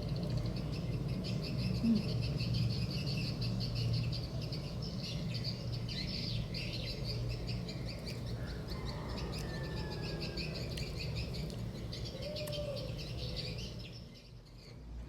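Small birds twittering continuously in rapid high chirps, with a few short gliding calls, over a steady low hum.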